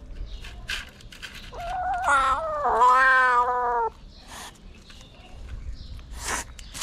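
Black-and-white kitten giving one long, angry yowling meow about two seconds long, then a few short hisses near the end: the kitten objecting to being handled and wiped.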